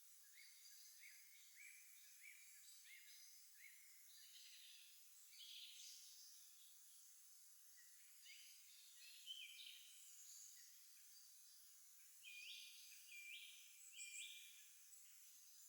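Faint songbirds singing: a run of short, repeated rising notes in the first few seconds, then scattered chirps and a few louder notes near the end, over a light background hiss.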